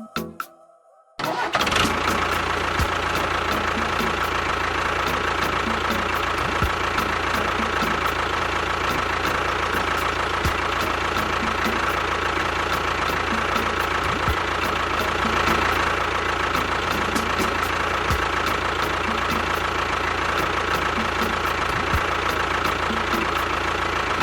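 A motor running steadily, starting suddenly about a second in, with a constant whine over a low rumble.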